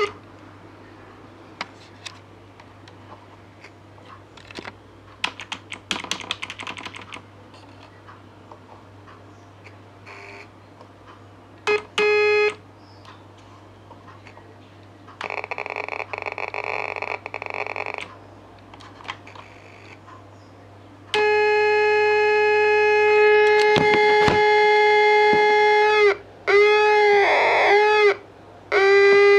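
Simple electronic tone generator giving a buzzy, steady pitched beep with many overtones, switched on in short bursts at first between small clicks and taps of handling. Later it sounds loudly for several seconds, its pitch dipping and wavering for a few seconds, and cuts out twice before coming back.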